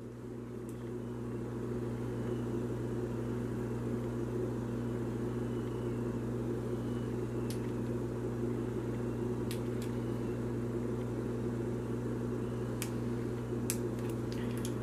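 Steady low machine-like hum, with a few faint light clicks of small metal flashlights being handled.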